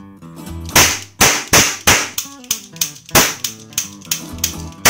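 Toy cap revolver firing caps: a quick string of sharp cracks, about two a second, over background music.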